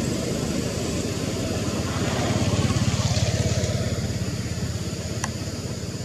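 A motor vehicle's engine running, swelling about halfway through and then fading, with a sharp click near the end.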